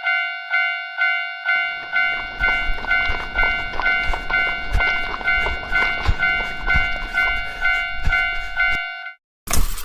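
Railroad crossing warning bell ringing about twice a second. From about a second and a half in, a train passes underneath it, a low rumble with irregular clacks of wheels over rail joints. Both stop abruptly just before the end, and a different loud noise cuts in.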